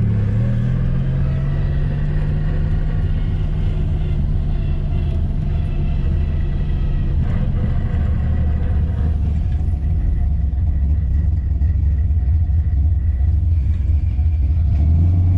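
Turbocharged 3.8-litre V6 of a Holden Commodore ute running at low revs, a steady low drone whose pitch drops lower about seven seconds in.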